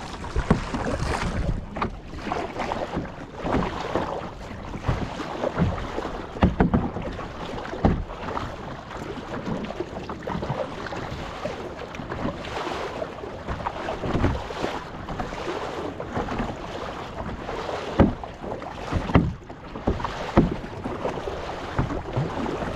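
Water sloshing and splashing around a paddled kayak in choppy waves, with irregular sharp splashes from paddle strokes and wind on the microphone.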